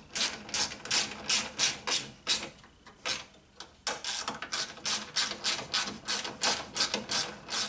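Hand ratchet clicking in quick runs, about three clicks a second with a short pause in the middle, as it runs bolts down on a car's radiator support bracket.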